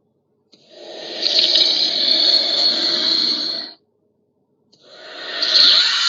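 Two made-up monster roar sound effects separated by a short silence. The first swells in about half a second in and runs about three seconds, and the second starts near the end.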